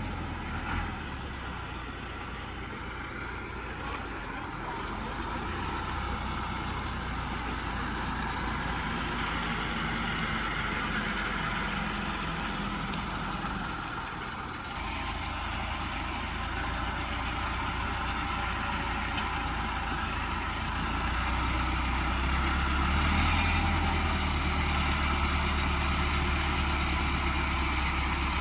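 Heavy diesel farm machinery engines running steadily, a tractor or the combine harvester, with the low engine hum growing louder about three quarters of the way through.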